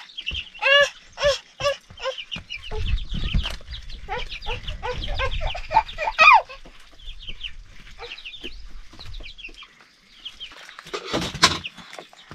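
Chickens clucking: a quick run of short calls over the first couple of seconds, then scattered calls, with a low rumble in the middle and a brief loud noise near the end.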